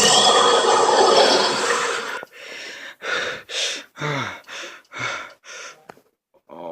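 A loud rushing noise cuts off about two seconds in. Then a cartoon character takes a run of about seven short, gasping breaths, the wind-up to a sneeze.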